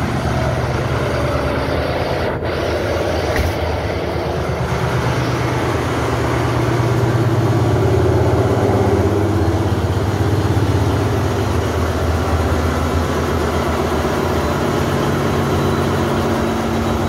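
Ship's diesel generator engine running steadily in the engine room: a loud, even mechanical drone that grows a little louder partway through.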